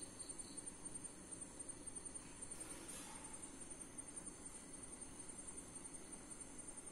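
Quiet room tone with a faint, steady, high-pitched whine over a low hum.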